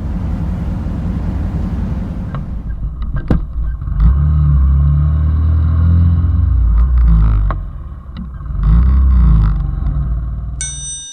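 Small 90 cc single-cylinder motorcycle engine running under way, its note dipping twice and picking up again. A bright ringing tone comes in near the end.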